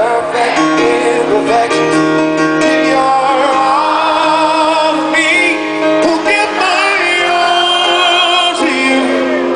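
Live concert music heard from the audience in a large venue: a slow ballad sung with vibrato over band accompaniment.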